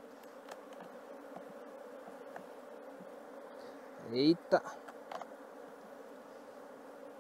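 Steady hum of a mass of honeybees flying around an opened hive. About four seconds in there is a short exclamation, then a sharp knock.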